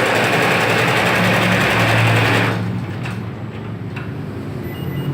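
Tajima two-head computerized embroidery machine stitching at speed, a fast, steady mechanical clatter. It stops abruptly about halfway through, leaving a quieter low hum.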